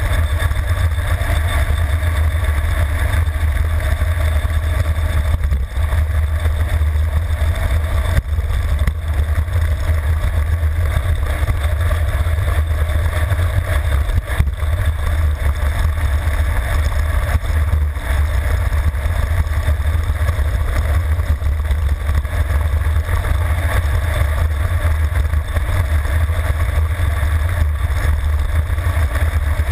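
Wind buffeting the microphone of a handlebar-mounted action camera on a road bike descending at high speed: a loud, steady low rumble.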